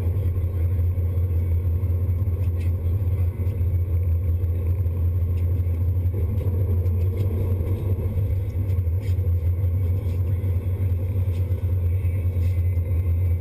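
Sportfishing boat's engine running steadily, a constant deep rumble, with a few faint clicks now and then.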